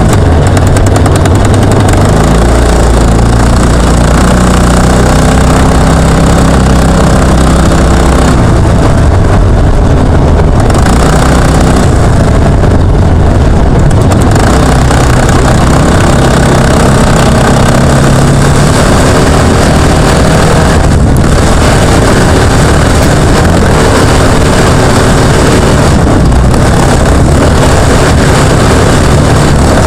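Jr1 off-road trophy kart's engine running hard, heard from onboard, its pitch rising and falling with the throttle. The sound is very loud, near the top of the recording level.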